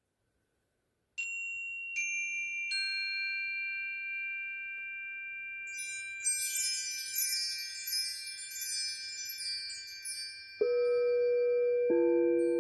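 Three metal bars of a chime on a wooden base are struck one after another, starting about a second in, each high tone ringing on under the next. Midway comes a few seconds of busy high jingling shimmer. Near the end a crystal singing bowl is struck and rings with a lower tone, and a second, lower bowl follows just before the end.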